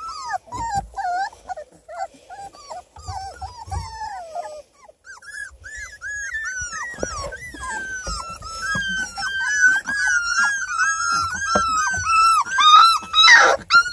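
Four-week-old beagle puppies whining and crying: a rapid string of short, high-pitched, rising-and-falling cries, thinner at first, then almost continuous and louder through the second half, with a harsher, louder cry near the end.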